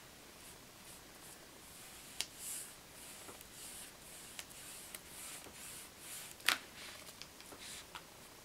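Foam brush wiped lightly over a painted hardback book cover, making faint, soft swishing strokes again and again. A few sharp taps cut in, the loudest about six and a half seconds in.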